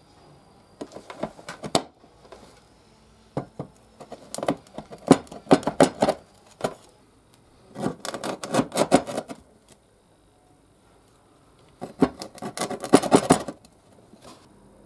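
Quick rubbing strokes made by hand, in five bursts with short pauses between.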